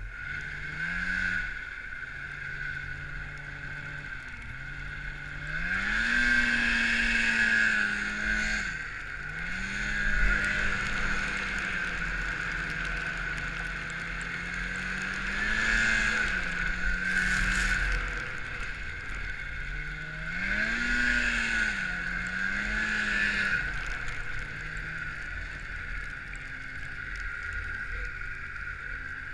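Snowmobile engine running under load, its pitch repeatedly rising and falling as the throttle is opened and eased off, with a steady high whine above it.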